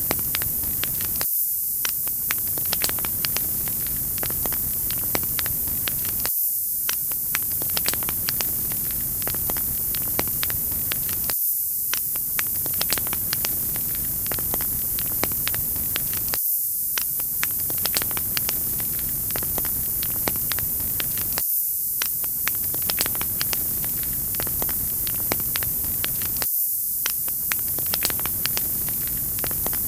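Crackling wood fire: frequent sharp pops and snaps over a steady bright hiss. The same short stretch repeats about every five seconds.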